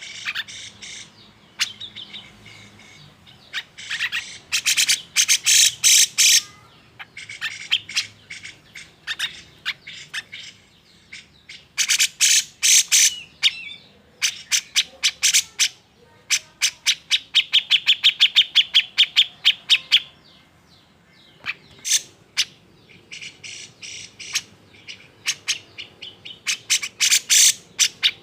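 Cucak jenggot (grey-cheeked bulbul) calling in an agitated, fired-up way: bouts of rapid, sharp chattering notes and quick trills, broken by short pauses.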